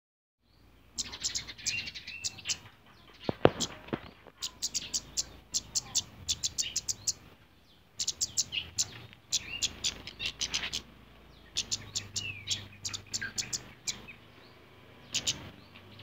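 Flowerpecker chirping in quick runs of sharp, high notes, each run about a second long and repeated again and again: the male courting the female. One sharp tap about three and a half seconds in.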